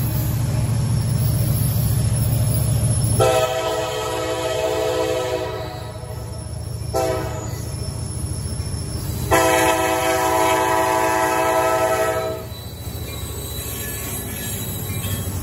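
An EMD SD70MAC diesel locomotive leading a freight train sounds its multi-note air horn three times for a grade crossing, a long blast, a shorter one and a long one ending about twelve seconds in. Before and after the horn there is the low rumble of the locomotive's engine as it approaches and passes close by.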